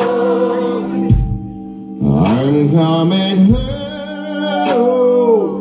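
Live band playing a slow groove with a low beat about every two and a half seconds. A male lead singer sings into the microphone while the audience sings along.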